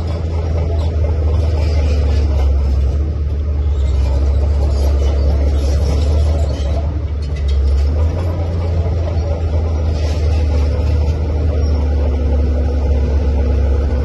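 Komatsu D41P crawler bulldozer's diesel engine running steadily with a heavy low rumble, and a few faint clicks now and then.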